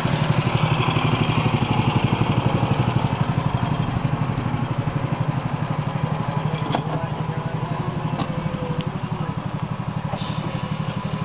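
Miniature live-steam locomotive running under way, its exhaust beating in a rapid, even chuff, with a few sharp clicks in the second half.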